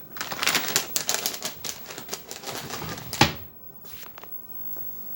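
A cat rummaging, its pawing and nosing making a dense run of rapid clicks and crinkling rustles, with one sharp louder knock about three seconds in; after that only a few faint clicks.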